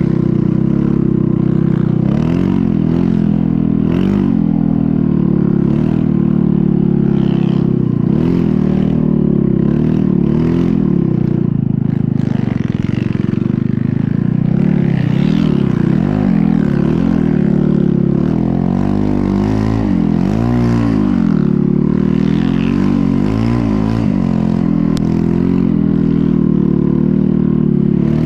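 Snow bike engine running hard throughout, its pitch rising and falling again and again as the throttle opens and closes.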